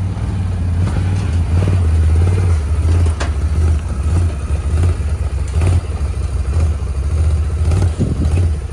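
Can-Am Renegade XMR 1000R ATV's V-twin engine running under varying throttle, its deep rumble rising and falling as it is driven up onto a trailer. A few sharp knocks from the tyres hitting the trailer ramp and deck come through the engine sound.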